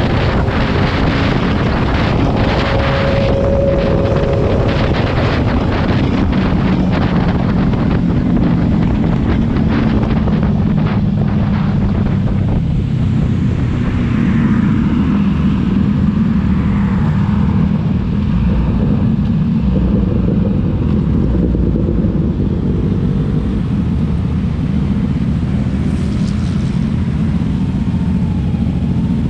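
Wind rushing over the microphone of a motorcycle at road speed, over the steady drone of the Kawasaki Z300's parallel-twin engine. The wind noise eases about halfway through as the bike slows.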